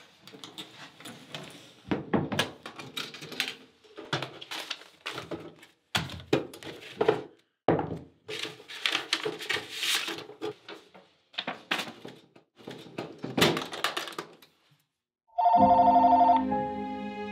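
Small boxes and papers being handled and moved about in a metal tray or drawer: irregular knocks, clatters and thunks in clusters. About fifteen seconds in, a telephone starts ringing.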